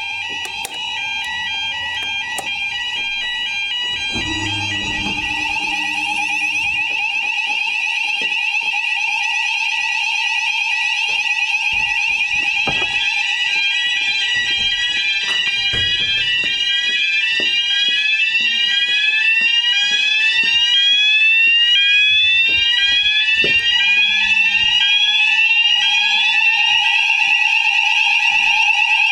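Fire alarm sounders going off after a manual call point is operated during a weekly test: several steady electronic tones, joined about twelve seconds in by a rapidly repeating rising sweep, growing louder.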